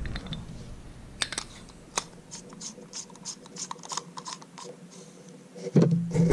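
Irregular light clicks, ticks and scrapes of small hard parts being handled, as a light bulb is worked into its socket. A louder low hum comes in near the end.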